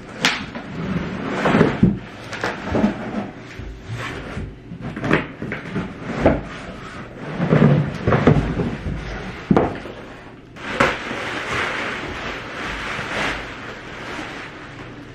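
A large cardboard shipping box being handled: flaps pulled open and the box knocked, scraped and shifted, with thumps. From about 11 s in, a steady crinkling of plastic bubble wrap as the packed item is pulled out of it.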